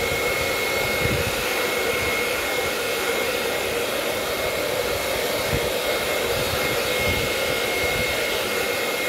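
Handheld hair dryer blowing steadily, a constant rush of air with a thin, high, steady whine over it.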